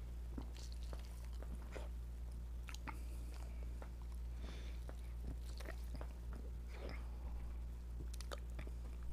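A person drinking cola from an aluminium can: soft gulps and swallows with small mouth and can clicks, over a steady low hum.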